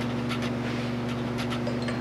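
Several light metallic clicks and clinks as small steel parts of a Polaris Scrambler 1000 transmission are handled and fitted into the open transmission case, over a steady electrical hum.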